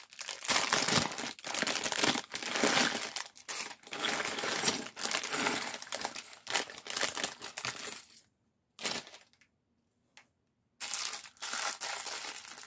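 A clear plastic Lego parts bag is torn open and crinkled by hand in a run of rustling bursts. It goes almost silent for a couple of seconds about eight seconds in, then the crinkling starts again.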